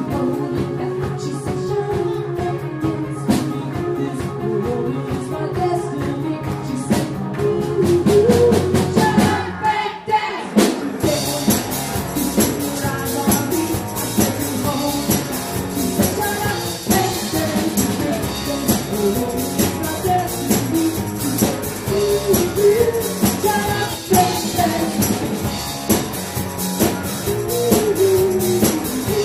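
Live rock band playing a pop-rock cover, with singing over electric guitar and drum kit. About ten seconds in the band drops back for a moment, then comes back in fuller.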